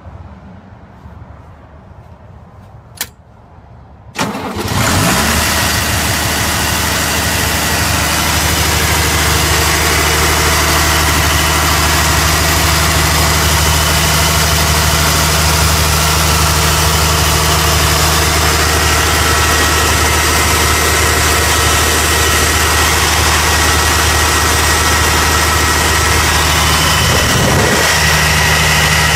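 1984 Deutz six-cylinder diesel in an Atlas air compressor starting up: a click about three seconds in, then the engine catches within about a second and settles into a steady idle.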